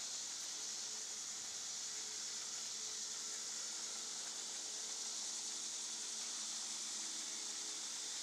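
Steady high-pitched hiss with a faint low hum beneath it, unchanging throughout.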